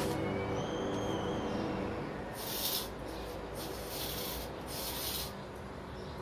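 Ambient background music: a low steady drone, a brief high gliding call-like tone in the first couple of seconds, then three short bursts of hiss like rain or surf.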